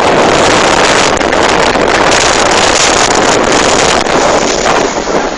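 Loud, steady rushing of strong wind and rough sea, with the wind buffeting the phone's microphone.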